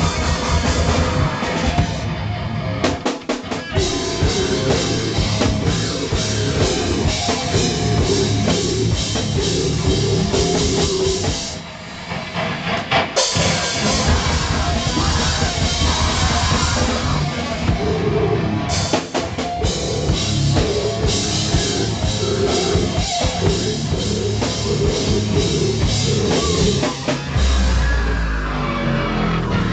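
Live rock band playing loudly, with a pounding drum kit under electric guitar; the music drops out briefly about twelve seconds in.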